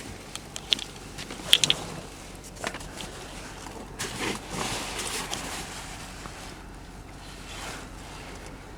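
A few sharp clicks, loudest in a quick cluster about one and a half seconds in, then soft rustling and shuffling noises; no engine is running.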